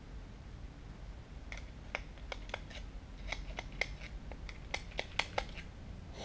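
Ratchet wrench clicking in short, irregular runs while a bolt is worked loose and backed out. The clicking starts about a second and a half in and stops shortly before the end.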